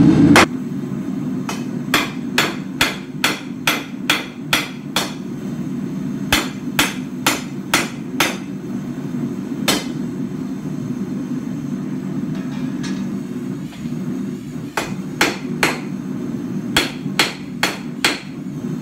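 Hand hammer striking a hot mild steel bar on an anvil, forging a taper. The blows come in runs of sharp strikes about two a second, with short pauses between runs. A steady low noise from the propane forge burner runs underneath.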